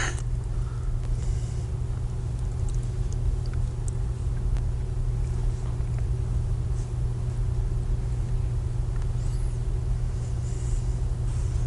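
Steady low hum and rumble with no speech, the background noise of an old 1970s videotape recording, with a few faint ticks.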